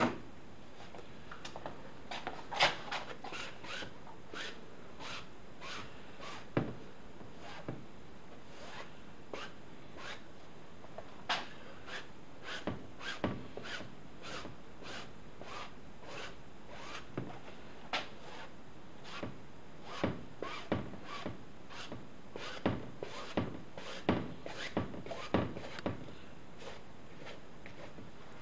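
Paintbrush scrubbing paint across a stretched canvas in short, irregular scraping strokes, about one or two a second, some louder than others.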